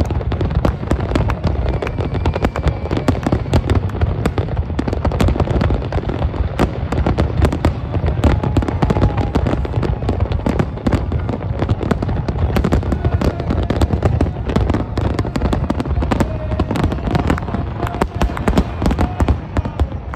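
Fireworks display at full intensity: a dense, continuous barrage of bangs and crackles, many per second, over a deep rumble, without a break.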